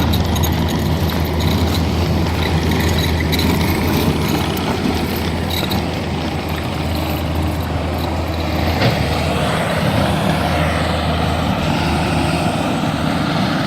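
Skid steer engine running steadily under work, with scattered clanks and rattles. A sharp knock comes about nine seconds in, after which the engine's low hum drops off.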